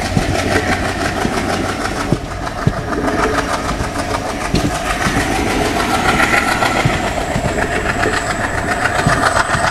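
A diesel-hauled passenger train running, heard from an open coach doorway: a steady rumble and rush with sharp wheel clicks over rail joints. A WDM3 ALCO diesel locomotive is pulling at the head of the train.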